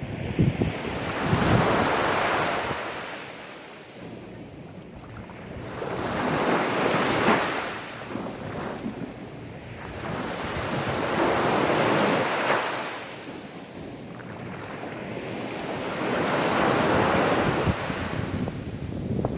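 Gentle sea waves washing onto a sandy beach, each wave swelling and then drawing back, four slow surges about five seconds apart.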